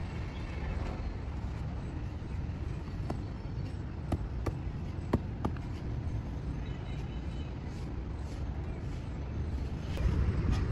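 Several sharp knocks as a tile mould holding wet cement is set down and tapped on the concrete floor to release the tile, over a steady low rumble.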